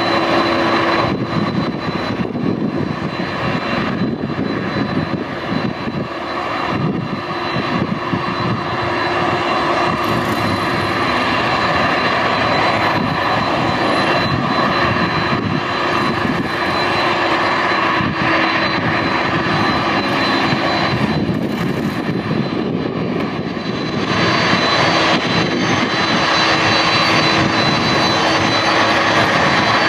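Boeing 747-400's four General Electric CF6 turbofan engines running as the jet taxis and turns on the runway: a steady jet whine with a high tone over a broad rush. It gets louder for the last several seconds.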